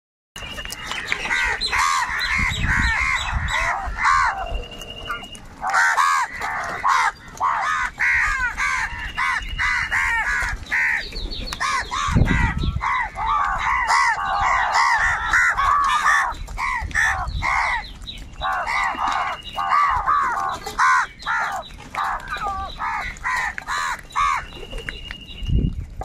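A flock of house crows cawing nonstop, with many harsh calls overlapping, while they feed together.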